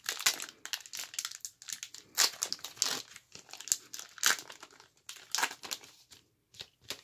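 Foil wrapper of a 1990-91 Skybox Series II basketball card pack crinkling and tearing as it is peeled open by hand, in irregular crackles with the loudest bursts about two seconds in and again around four and five seconds.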